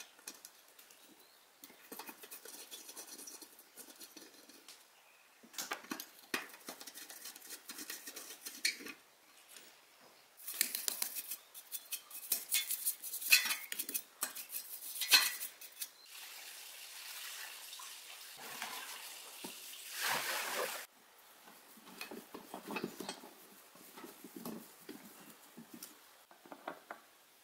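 Hand work on metal parts: scattered clinks, taps and scrapes, with a longer stretch of louder rustling, scraping noise from about ten to twenty-one seconds in.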